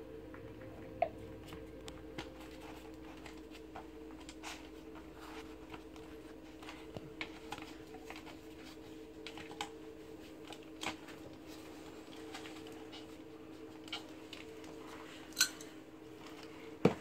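A knife cutting and scraping at a PVC shower pan liner around a plastic drain flange: scattered light clicks and scrapes, a few sharper ones, over a faint steady hum.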